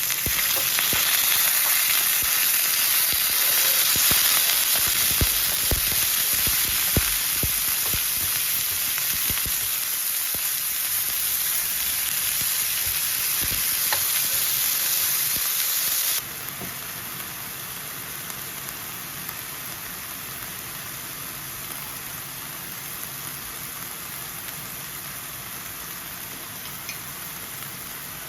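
Bibimbap sizzling on a BRUNO electric hot plate, with scattered knocks and scrapes of a utensil stirring it in the first half. A little past halfway the sizzle drops suddenly to a quieter, steady level.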